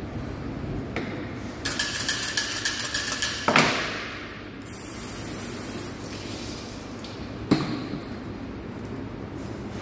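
A steel knife drawn about ten times in quick succession through a pull-through knife sharpener: rasping strokes with a faint ringing tone, ending in a loud knock. Later comes a single sharp knock, over a steady background hum.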